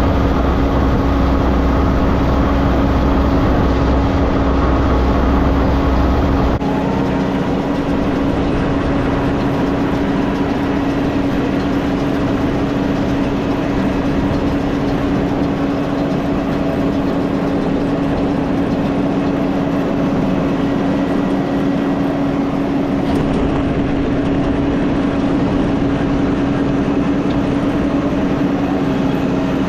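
Farm tractor engine running steadily with a constant droning hum. About six and a half seconds in the deep low rumble drops away abruptly while the hum carries on.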